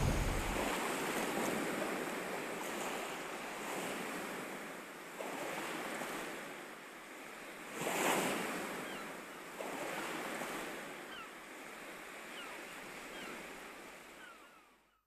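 Sea surf washing in: a rushing noise that swells and fades several times, loudest about eight seconds in, then dies away just before the end. Faint short chirps sound in the last few seconds.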